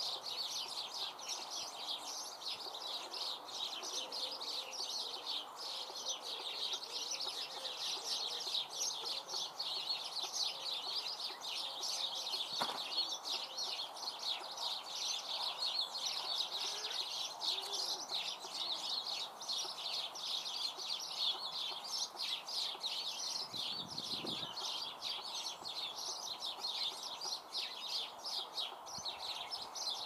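A flock of small songbirds chattering without pause, a dense mass of rapid, high chirps overlapping one another.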